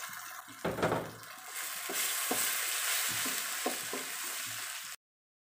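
Fern shoots stirred with a wooden spatula in a stainless wok of boiling belacan chilli sauce: steady sizzling, with the spatula knocking against the wok now and then. There is a louder knock a little under a second in. The sound cuts off suddenly near the end.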